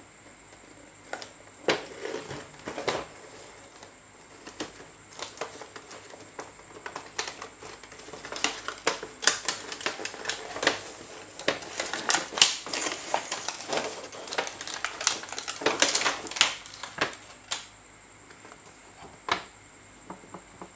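A toy bus and its packaging being handled by hand: a run of irregular small clicks and taps, sparse at first, coming thick and fast in the middle, then thinning out. A faint steady high whine runs underneath.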